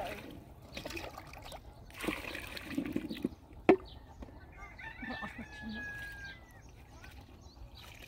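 Water poured from a plastic jug into a pot, then one sharp knock about three and a half seconds in as the jug is set down on the tank's concrete edge. A rooster crows with one long call a little after five seconds in.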